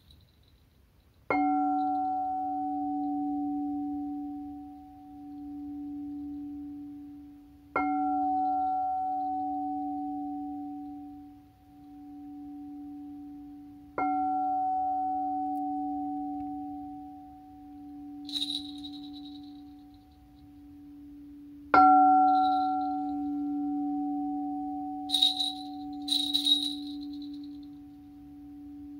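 Frosted quartz crystal singing bowl struck with a mallet four times, about every six to eight seconds. Each strike rings on as a long, low hum that slowly wavers, swelling and fading. Brief high chimes sound once near the middle and twice close together toward the end.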